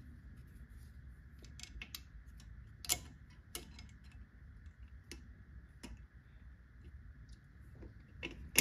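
Scattered light metallic clicks and taps as pliers work a spring onto a rear drum brake's shoe hardware, the sharpest click about three seconds in and another near the end, over a faint low hum.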